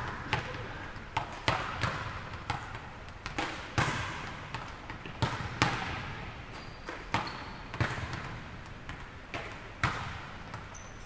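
Volleyballs being struck and bouncing on a hardwood gym floor: a string of sharp smacks at an irregular pace, roughly one or two a second, each echoing in the large hall.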